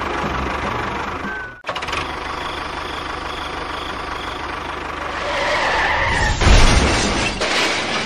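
A small motor running steadily, as on a miniature model tractor. It breaks off briefly about one and a half seconds in, then grows louder with a heavier rumble and clatter near the end.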